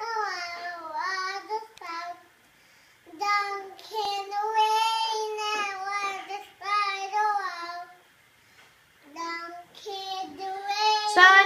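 A young girl singing a children's song in a high voice, in three sung phrases with short breaks between them.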